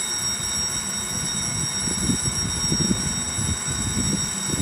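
Japanese railway level-crossing warning bell ringing with several high tones, while a low rumble builds underneath from about two seconds in as a train approaches.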